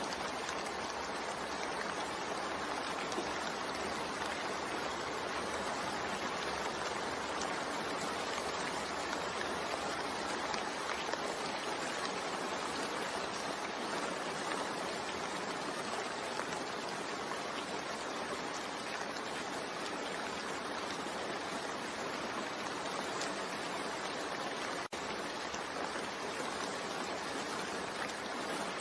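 Steady recorded rain: an even hiss of falling rain with no distinct drops, broken only by a momentary drop-out about 25 seconds in.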